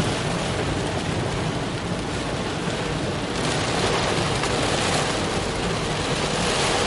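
Heavy rain on a car and its tyres swishing through standing floodwater: a steady rushing noise that grows brighter about three seconds in.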